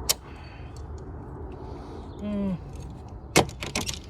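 Sharp metallic clicks and clanks of a screwdriver working a hose clamp on a radiator hose: one click at the start, a short rattle with a brief falling tone about two seconds in, and a quick cluster of clanks near the end.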